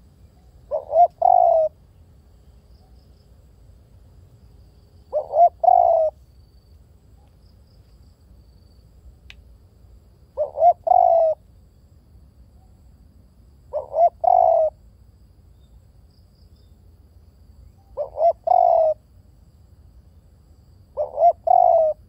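Spotted dove cooing: six phrases spaced a few seconds apart, each two short coos followed by a longer third note.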